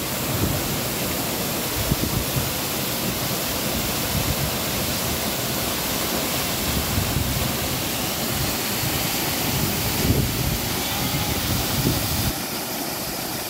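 Waterfall crashing into a rocky pool close by, a steady rush of water. The low rumble in it drops away about a second before the end.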